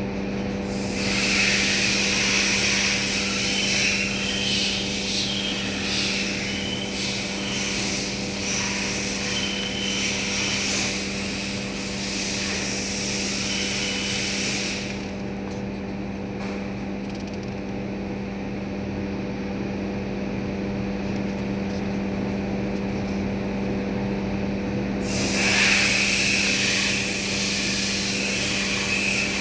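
A steady mechanical hum runs throughout. A loud hissing noise, like escaping or blown air, covers it for most of the first half and again near the end.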